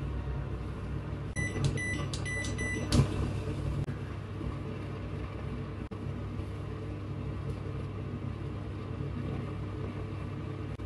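Handheld electric facial massage device beeping a quick run of about five short high beeps, then a knock, over a steady low hum.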